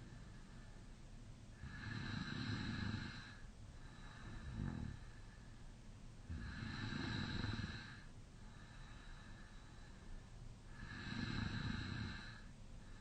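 A man snoring in deep sleep with his mouth slightly open. There are three loud, rattling snores about four and a half seconds apart, each lasting nearly two seconds, with quieter breathing between them.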